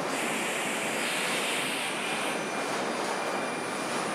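Steady machinery noise of an automated car body-shop line, with robots at work, and a hiss rising over it for the first two seconds or so.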